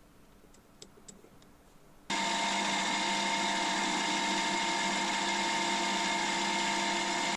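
A few light clicks, then about two seconds in a milling machine's spindle comes in suddenly and runs steadily with an even motor whine, as the ratchet slots are milled in a steel indexing sleeve held in a dividing head.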